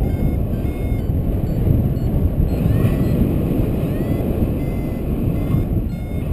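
Wind rushing and buffeting over the camera microphone of a paraglider in flight: a loud, steady, low rumble.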